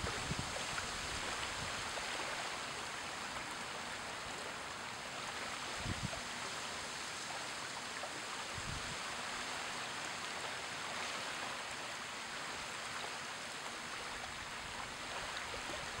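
Small, gentle waves lapping and washing over wet sand at the water's edge: a steady, even wash of water. Two brief low bumps come about 6 and 9 seconds in.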